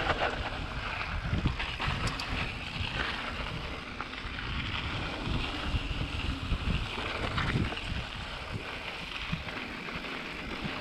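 Mountain bike rolling fast down a dry dirt trail: tyres rumbling and crunching over the ground, with small rattles and knocks from the bike, under wind noise on the microphone.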